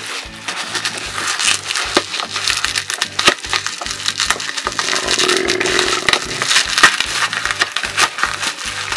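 Plastic bubble wrap and packing tape crinkling and crackling under hands that pull and peel at them: dense, irregular crackles.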